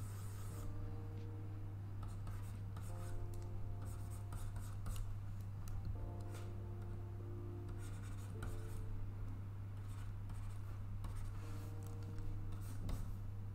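Stylus scratching and tapping across a pen display's drawing surface in quick short strokes while sketching, over a steady low hum.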